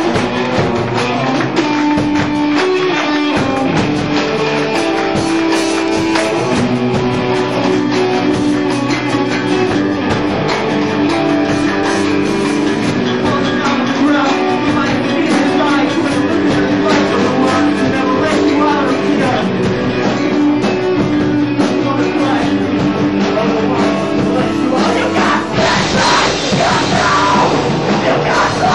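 Rock song with guitar, drums and singing; about 25 seconds in it turns heavier and fuller, with more bass.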